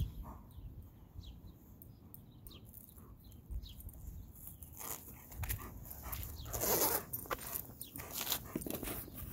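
German Shepherd whining in a string of short, high, falling whimpers while waiting for its ball, followed by a louder burst of noise about two-thirds of the way through.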